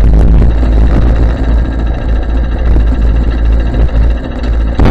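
Murray go-kart's small engine running at idle, a loud, distorted low rumble through a cheap helmet camera's microphone.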